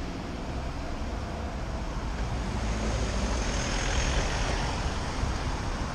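Road and traffic noise heard from a moving bicycle on a wet street: a steady low rumble with a hiss that swells about three seconds in.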